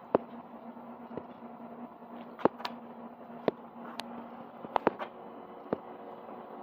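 Diesel air heater during a start-up attempt: a steady blower-like whir with a low hum that drops out about halfway, and about ten sharp clicks at irregular intervals.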